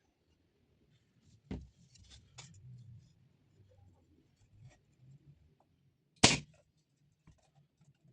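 Hand work on wooden pieces: small clicks and rubbing, with a knock about a second and a half in and a sharper, louder knock about six seconds in.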